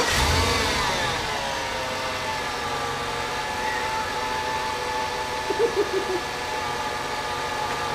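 Chevrolet Tahoe's LM7 5.3-litre V8 just after starting: the revs fall from the start-up flare over the first second or so, then it idles steadily.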